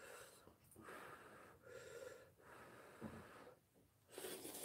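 A person slurping ramyun noodles: a series of soft, breathy slurps, the sharpest one near the end.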